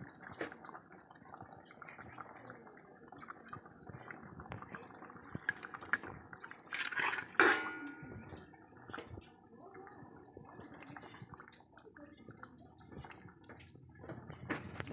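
Curry boiling in a metal pot with a steady fine bubbling. About seven seconds in, fresh sardines are tipped in from a metal plate with a loud clatter against the pot. Near the end, a wooden spatula stirs the pot.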